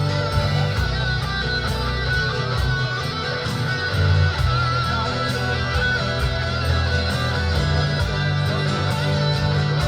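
Instrumental passage of a song: guitars playing over a steady bass line with a regular beat.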